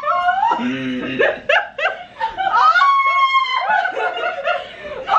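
People laughing hard, with a long high-pitched squeal of laughter about three seconds in.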